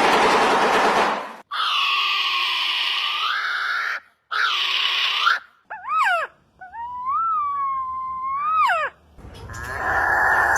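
A run of unusual bird calls, one after another: a harsh rasping call, two long nasal calls, a few quick swooping whistles, then a drawn-out whistle that swells and dips near its ends, followed by a harsh buzzing call near the end.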